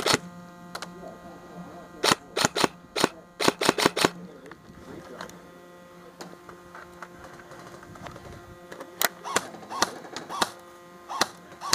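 Airsoft rifles firing, sharp snapping shots: a quick string of about a dozen about two seconds in, then a few scattered shots near the end.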